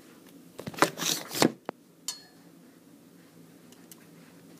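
Plastic construction-toy pieces clicking and clacking together as they are handled, a handful of sharp knocks in the first two seconds or so.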